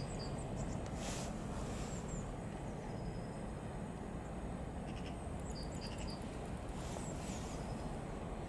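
Outdoor railway-platform ambience: a steady low rumble with short, high bird chirps now and then.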